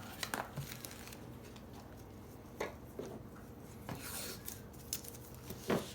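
Light clicks, taps and scrapes of small metal pieces and tape being handled on a work table, a few seconds apart, over a faint steady low hum.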